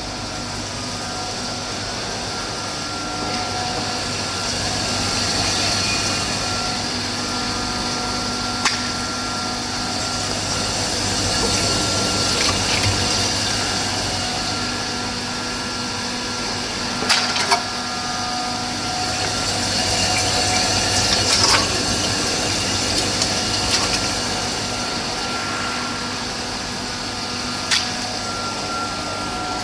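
A 10-ton cube ice machine with a Hanbell screw compressor running: a steady mechanical hum with a few fixed tones under a hiss that swells and eases. A few sharp clicks or knocks stand out, a pair about midway and single ones before and after.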